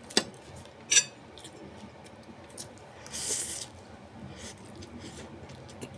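Two sharp clinks of an eating utensil against a dish, near the start and about a second in, then a short hissy rush about three seconds in.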